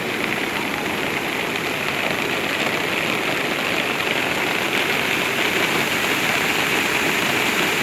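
Fast-flowing muddy rainwater runoff rushing and churning into foam, a steady, unbroken rush of water.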